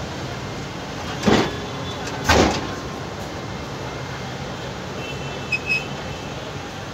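Alexandria tram car rolling slowly past with a steady low rumble. Two loud clanks come about a second apart, and two brief high-pitched squeaks sound near the end.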